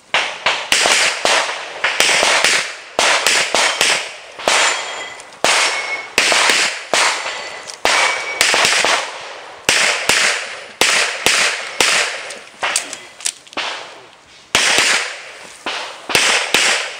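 Rapid handgun fire from a competitor shooting a practical pistol stage: about thirty sharp shots, many in quick pairs, each with a short echo. There are brief pauses as he moves between shooting positions.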